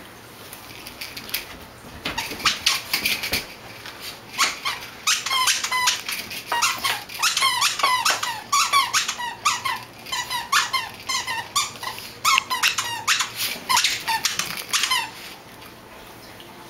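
Squeaker in a plush cow toy squeaking again and again as a small dog bites and shakes it. The squeaks are short, quick and falling in pitch, come in runs starting a couple of seconds in, and stop shortly before the end.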